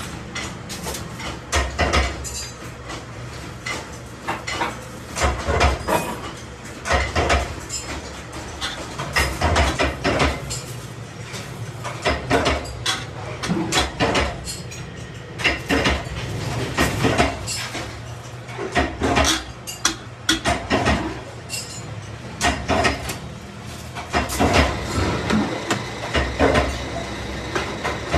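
Irregular metallic knocks and clatter of stainless steel parts being struck and handled, over a steady low hum.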